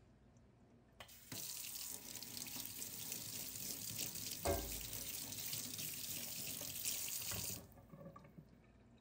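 Kitchen faucet turned on about a second in, water running steadily into the sink, then shut off near the end. Midway there is a single thump in the sink, the loudest moment.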